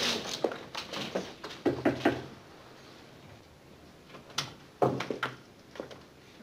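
Footsteps on the office floor, then a sharp click about four and a half seconds in and a few knocks as an office door is opened.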